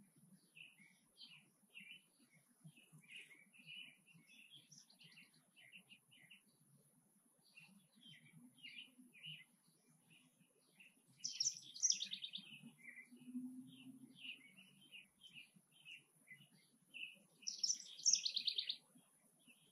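Small birds chirping in many short, irregular notes, with two louder, quick twittering bursts, one about halfway through and one near the end.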